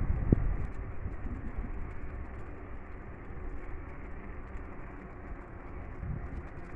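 Wind rushing over the microphone of a camera on a moving bicycle, mixed with the steady road noise of the bike rolling along a paved trail. A few heavy wind thumps come at the very start, then it settles into a steadier, slightly quieter rush.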